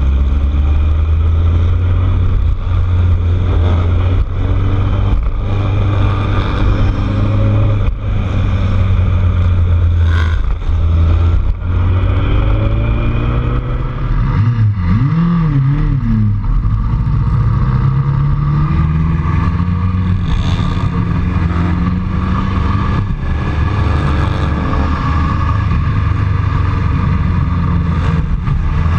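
Vehicle engine running steadily under way, with road and wind noise. About halfway through the engine pitch rises and falls quickly a couple of times, then climbs slowly as it picks up speed.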